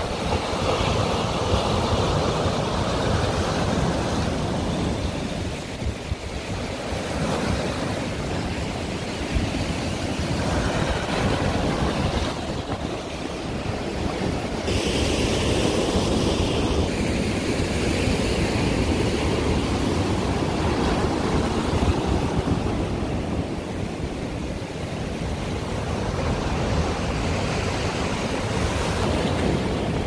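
Sea waves breaking and washing over a rocky, pebbly shore in a continuous rush, with wind on the microphone.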